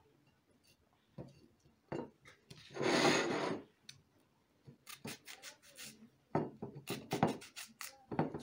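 Small kitchen knife slicing through a raw onion held in the hand, crisp cutting and scraping strokes. There is one longer rasping cut about three seconds in, then quick runs of short cuts from about five seconds on.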